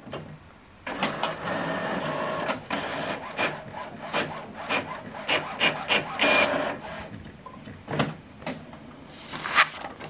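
HP OfficeJet Pro 9120e inkjet printer printing a document. It starts up about a second in with a steady motor whir, then the print head shuttles back and forth in a quick run of swishes and clicks, with a sharp click and a louder rush of paper feeding near the end.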